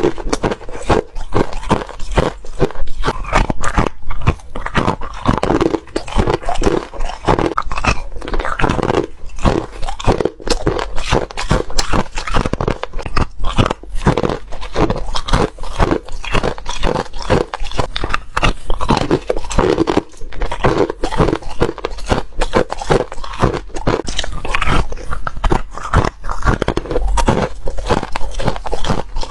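Crushed ice being bitten and crunched, one crunchy bite after another in a dense, rapid run.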